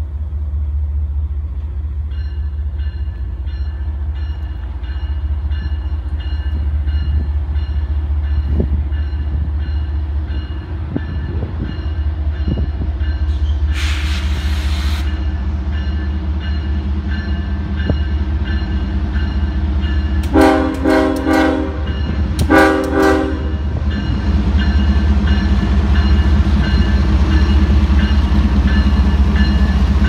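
Approaching Norfolk Southern freight train with its diesel locomotive rumbling steadily. About two-thirds of the way through, the locomotive's air horn sounds two short blasts, and the rumble grows louder near the end as the train arrives.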